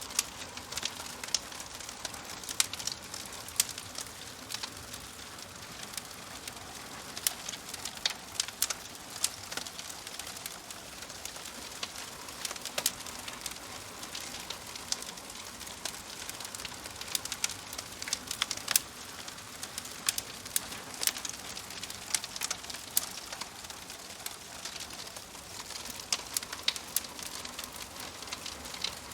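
Wood fire crackling steadily in a fireplace, with irregular sharp pops and snaps over a soft hiss.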